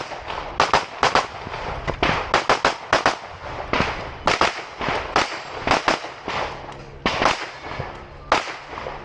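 Rapid pistol fire from an IPSC Open Division pistol during a timed stage: many sharp shots, mostly in quick pairs a fraction of a second apart, with short pauses between groups.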